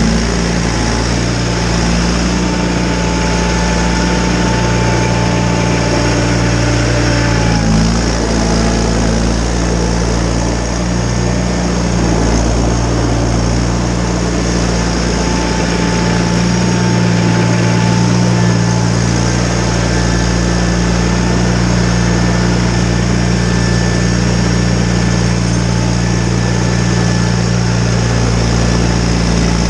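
John Deere 318 garden tractor's twin-cylinder engine running steadily while clearing snow with its Model 49 snowblower, with a thin whine coming in twice.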